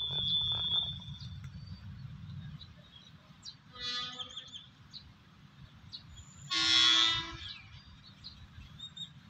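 Horn of an Alsthom diesel-electric locomotive, sounded twice as it approaches the station to warn people crossing the tracks: a short toot about four seconds in, then a longer, louder blast of about a second near seven seconds. A low rumble is heard at the start.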